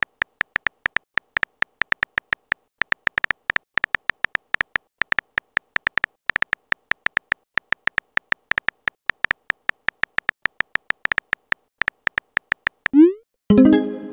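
Simulated keyboard typing sounds from a texting-story app: rapid, irregular short high clicks, several a second, as a message is typed. Near the end a rising whoosh plays as the message is sent, followed by a brief pitched tone.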